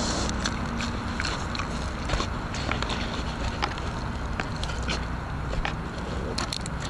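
Black bear licking and mouthing a trail camera right against the lens: irregular wet clicks and smacks over a steady low hum.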